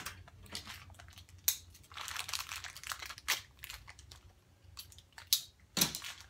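Packaging crinkling while parts are handled, with a few sharp clicks and knocks in between.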